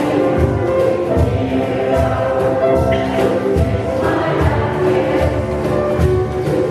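Mixed choir singing with piano accompaniment, over a steady djembe beat of about two to three strokes a second.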